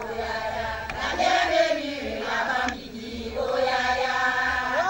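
A group of women chanting a welcome song in chorus, in long held phrases.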